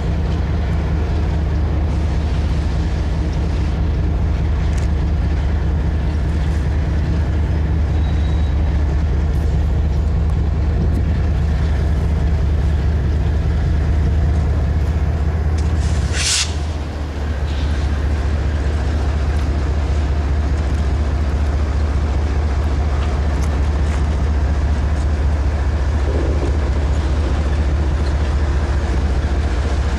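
Steady low mechanical rumble of a vehicle running continuously, with one short hiss about sixteen seconds in.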